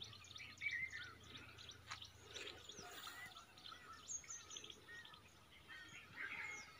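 Birds chirping faintly: many short high chirps and a few quick whistled slides in pitch, overlapping.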